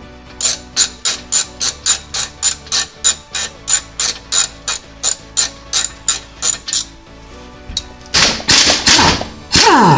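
Hand socket ratchet clicking steadily, about three and a half clicks a second, as bolts are worked loose from a car's rear differential brace. Near the end, a louder, faster rattling spin whose pitch falls away.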